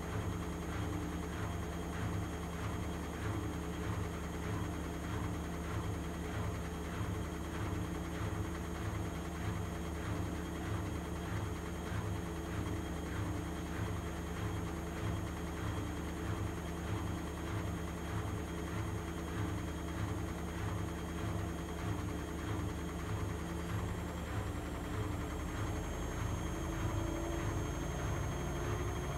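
Vestel CMI 9710 front-loading washing machine on its spin cycle, set to full 800 rpm spin: a steady motor and drum hum with a regular pulse about twice a second, the low tone shifting slightly near the end.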